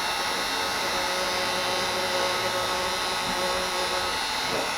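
Wagner electric heat gun running steadily on its low setting, a constant fan whine with a hiss of blown air.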